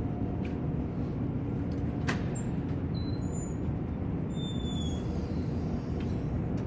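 Steady low rumble of city street traffic, with a sharp click about two seconds in and a few faint, thin high tones after it.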